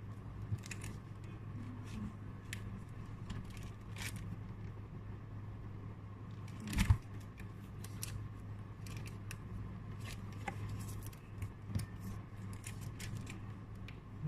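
Match Attax trading cards and plastic binder pages being handled: scattered light clicks and rustles, with one louder knock about seven seconds in. A steady low hum runs underneath.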